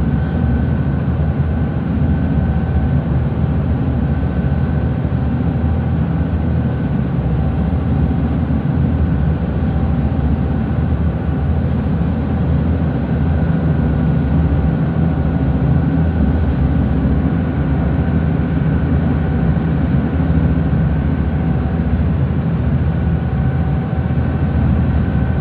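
A ferry's twin Scania DI13 marine diesel engines running steadily at cruising speed, heard from inside the passenger cabin as a loud, even low drone with a thin steady tone above it.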